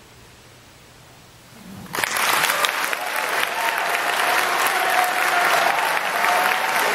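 Quiet room tone, then an audience breaks into loud, steady applause about two seconds in, with one long held cheer-like tone faintly riding over the clapping.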